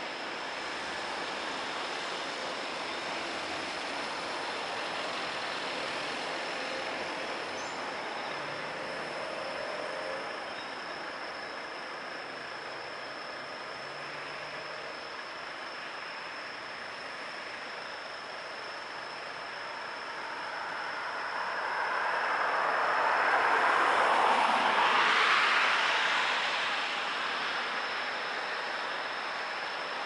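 Road traffic on wet asphalt after rain: a steady hiss of distant cars, then one car passes close about two-thirds of the way through, its tyres swishing louder and then fading over about five seconds. A faint steady high tone sits underneath.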